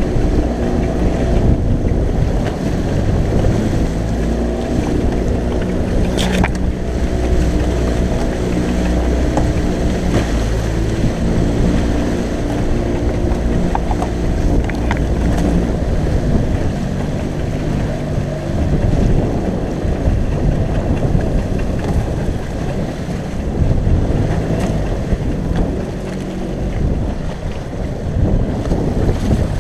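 Outboard motor of a small open fishing boat running under way, with wind buffeting the microphone and waves splashing against the hull. There is a single sharp knock about six seconds in, and the engine note fades about two-thirds of the way through.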